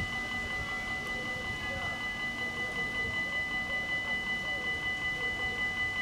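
Dutch level-crossing warning bells ringing without a break in a steady, high, metallic ring, the signal that the crossing is closed for an approaching train.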